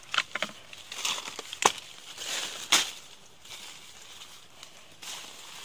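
Leaves rustling and twigs and branches cracking as a person pushes through dense undergrowth, with a few sharp snaps, the loudest about a second and a half in.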